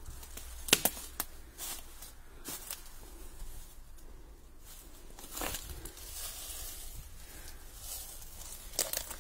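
Someone moving about close to the microphone: scattered crunches and rustles, sharpest twice about a second in and again near the end, over a steady low rumble.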